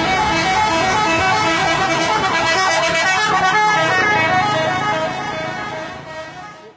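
Bus 'telolet' horn, a multi-tone musical air horn, playing a tune of quick stepped notes. It fades out over the last couple of seconds.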